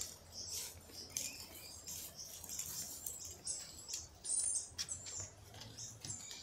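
Small birds chirping, with many short high calls one after another, some rising or falling in pitch.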